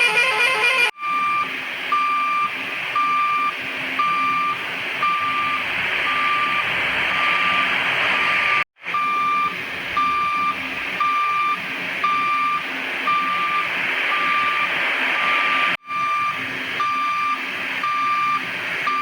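Vehicle reversing alarm beeping steadily about twice a second over a steady engine-like hiss, after a horn-like tone in the first second. The sound cuts out briefly three times, about one, nine and sixteen seconds in.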